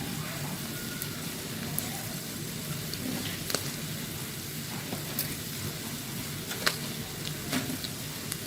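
Betel-leaf-wrapped pork rolls frying in oil in a pan: a steady sizzle with scattered pops, the rolls nearly cooked.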